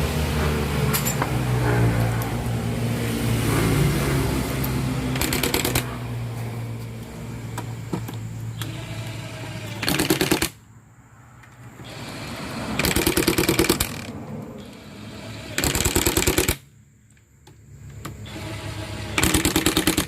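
Power wrench, most likely a pneumatic impact wrench, rattling in five short bursts as bolts are run down during assembly of a bulldozer transmission. A steady engine-like hum runs underneath for the first few seconds.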